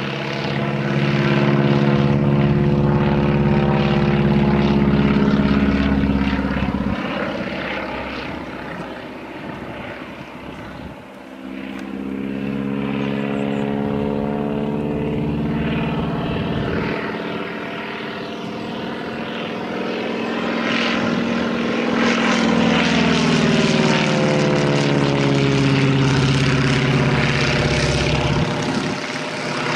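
Boeing Stearman biplane's radial engine and propeller droning overhead during aerobatics. The pitch and loudness swell and fall as the aircraft climbs, dives and turns, fading about ten seconds in before building again.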